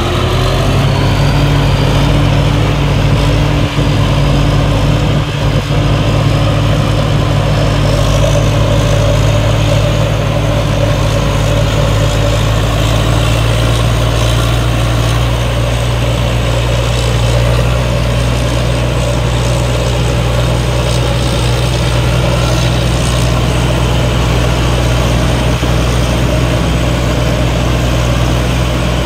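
Crawler rice combine harvester's diesel engine running steadily under load, with the threshing machinery whirring as it harvests rice. A faint high whine rises over the first several seconds.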